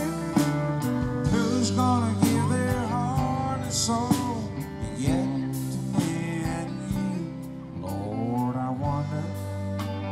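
Live country band playing an instrumental break between verses: an electric lead guitar with bent notes over bass, drums and keyboard.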